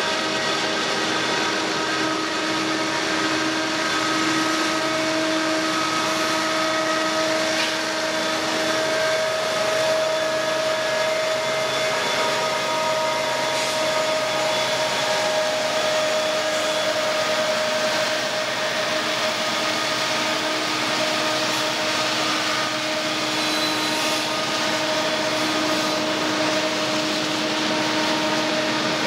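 Freight train cars rolling slowly past on the rails: a steady wheel-on-rail noise with a few held, ringing tones that come and go.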